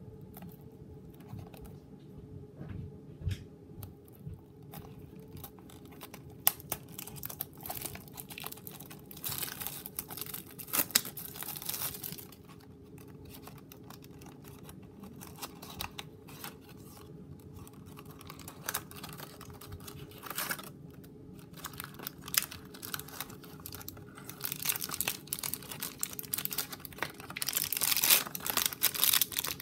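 Hands opening a blind-box toy package: cardboard and plastic wrapping torn and crinkled, with scattered clicks and taps of handling. The rustling gets denser and louder about a third of the way in and again near the end, as a small figure in a clear plastic bag is pulled out. A faint steady hum runs underneath.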